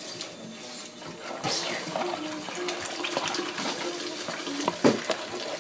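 Water running steadily from a tap, with faint voices behind it.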